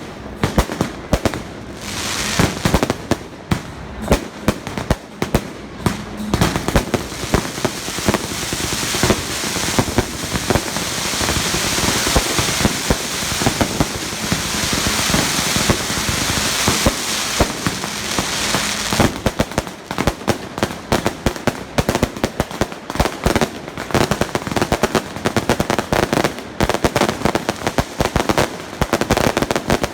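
Strings of firecrackers going off in rapid, irregular bangs; about eight seconds in the cracks run together into a dense continuous crackle, and after about nineteen seconds they thin out into separate sharp bangs again.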